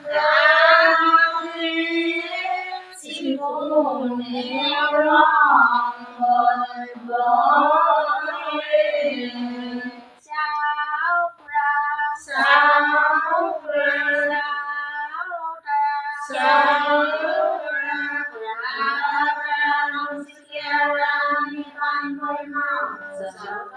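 Women singing Ai naam, the Assamese devotional songs of the Ai Xakam ritual, unaccompanied, in long sung phrases with short breaks between them.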